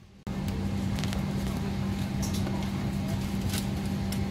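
Steady airliner cabin noise inside a Boeing 777-300ER, a low hum over a hiss of air, starting abruptly about a quarter second in. A few light clicks and rustles sound over it.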